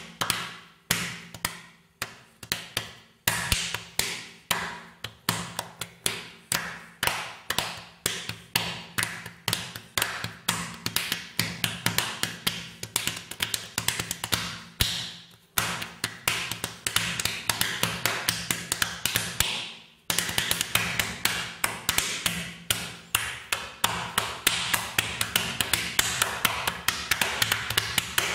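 Sharp percussive taps repeating, at first about two a second and growing steadily denser, with a brief break about twenty seconds in, after which they come in a fast run. A low steady hum lies beneath them.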